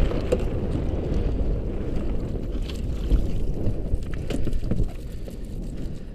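Wind rumbling on the microphone and water lapping around a small inflatable boat, with a few light knocks and rustles as a wet mesh shrimp trap is hauled aboard. The rumble eases a little near the end.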